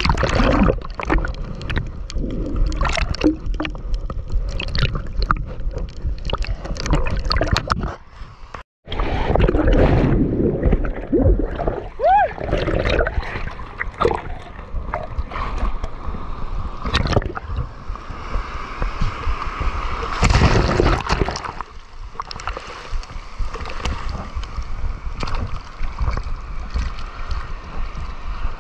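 Sea water sloshing, gurgling and splashing around an action camera as it dips in and out of choppy surf, with frequent sharp splashes and a rushing wash of waves; the sound cuts out for a moment about nine seconds in.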